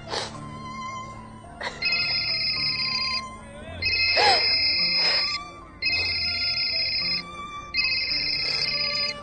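Mobile phone ringing: an electronic ringtone in four evenly spaced rings of about a second and a half each, starting about two seconds in.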